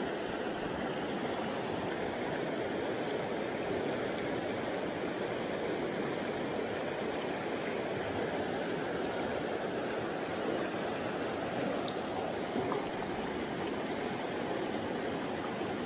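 A small mountain stream running over rocks: a steady, even rush of water. A few faint clicks sound near the end.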